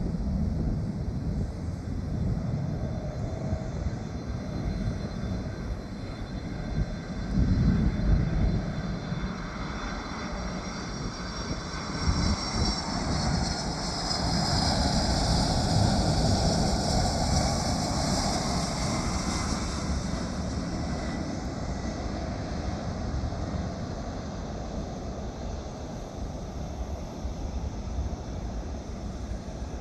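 Jet aircraft engines: a steady low rumble that swells to its loudest a little past halfway, with a high engine whine, then slowly fades as the plane passes.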